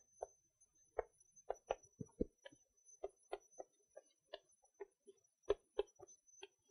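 Chalk tapping and scratching on a blackboard as equations are written: a string of short, faint taps at an uneven pace, a few of them heavier knocks.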